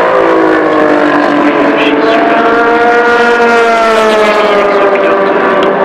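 Toyota TS050 Hybrid LMP1 prototype's twin-turbo V6 race engine passing at speed. Its pitch drops as it goes by, then climbs again as the car accelerates away.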